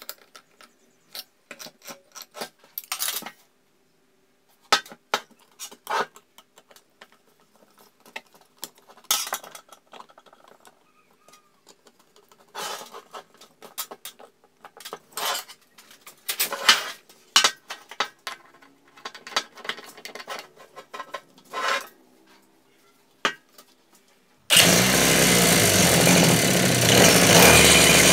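Irregular metallic clicks and taps of hand work on metal parts; about 24 seconds in, a two-stroke brushcutter engine fitted with a chainsaw attachment suddenly starts running loudly.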